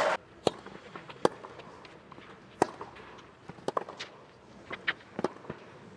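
Tennis rally on a clay court: sharp pocks of rackets striking the ball every second or so, with smaller ticks of the ball bouncing and shoes on the clay in between.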